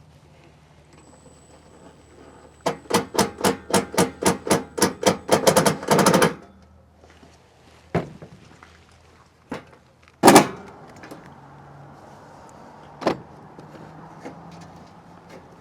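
A screw being driven into the furnace housing: a run of quick rhythmic strokes that speed up until they blur together over about three and a half seconds. This is followed by scattered metal knocks, one loud one a little past the middle.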